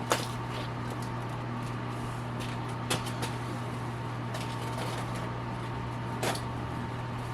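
A steady low background hum with light handling noises over it: a few soft rustles and sharp clicks, about three seconds in and again about six seconds in, as a paper towel wipes old oil out of a dirt bike's oil filter cap.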